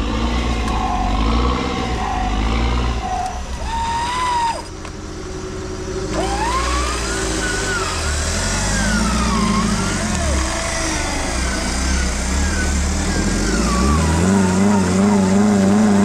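Off-road 4x4 engine and drivetrain working on a trail, with a whine that rises and falls repeatedly in pitch as the throttle varies.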